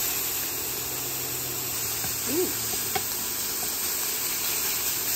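Raw ground beef sizzling with a steady hiss in a hot cast-iron skillet alongside browned chorizo, with a spatula breaking the meat up later on.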